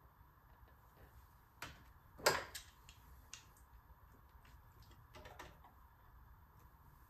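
Scattered light clicks and taps of hand work on a turbocharger's fittings and oil line: the loudest a little over two seconds in, with a few more just after five seconds.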